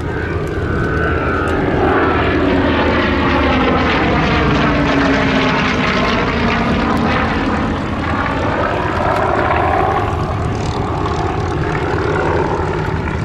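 Rolls-Royce Merlin V12 piston aero engines of a warbird passing in a flypast, running steadily and loud. The engine note drops in pitch as it goes by, with a sweeping, phasing sound as it passes.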